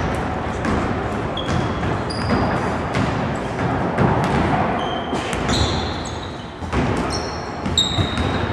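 Basketball game play: a ball bouncing on a hard hall floor over a steady background of movement, with several short high-pitched sneaker squeaks scattered through.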